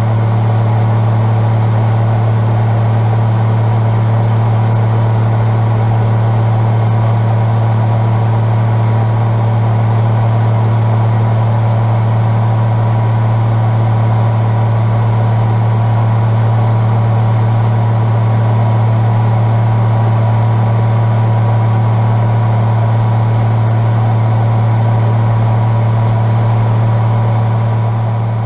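Bell 47 helicopter in flight: its piston engine and rotor make a loud, steady drone with a strong low hum, easing off slightly near the end.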